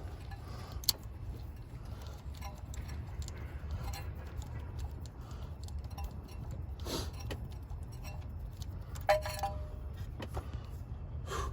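Scattered light metallic clinks and taps from hand tools and parts being handled in a car's engine bay during a spark plug change, one of them ringing briefly, over a steady low background rumble.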